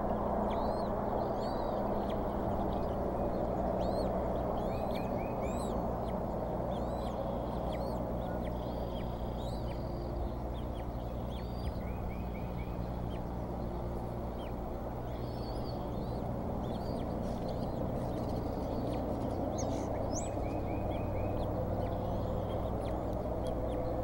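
Newly hatched bald eaglets peeping as they are fed, with many short, high calls and quick four-note trills about every seven seconds. Under them runs a steady electrical hum and hiss from the nest camera's microphone.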